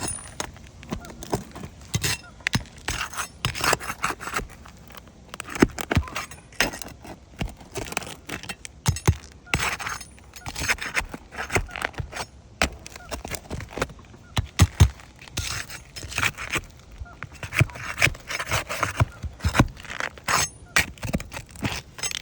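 Irregular clicks, taps, scrapes and crackles of asphalt roof shingles being handled and walked on, continuing without a break.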